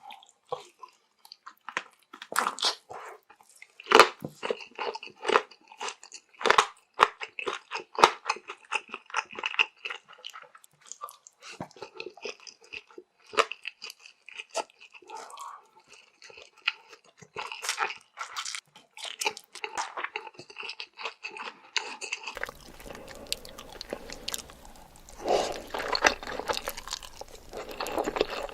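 Close-miked eating sounds: wet chewing and crunching in quick, irregular clicks and crackles. About three-quarters of the way through the recording changes, and a steady hiss runs under the chewing.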